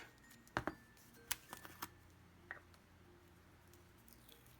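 A few sharp plastic clicks and taps as slime containers and their lids are handled and opened, most of them in the first two and a half seconds, over faint background music.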